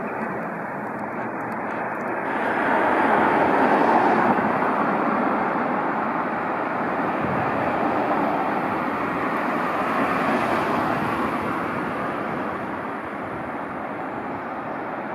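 Road traffic passing a street crossing: a steady rush of tyre and engine noise that swells as a vehicle goes by a few seconds in, and again more softly later. No crossing beeper sounds.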